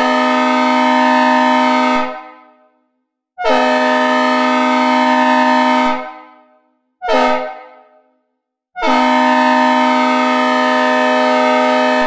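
Synthesized recreation of a Leslie S3L/RS3L three-chime diesel locomotive air horn sounding a chord in four blasts, long, long, short, long: the pattern of a grade-crossing signal. Each blast opens with a slight scoop in pitch and fades out with a reverb tail.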